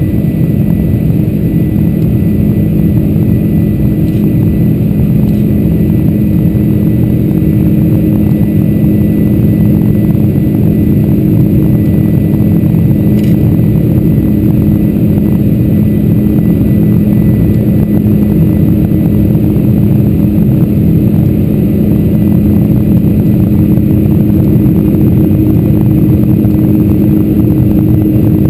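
Cabin noise of a Boeing 747-400 climbing after takeoff: its General Electric CF6-80C2 engines at climb power, heard inside the cabin as a steady drone with a low hum and a faint high tone.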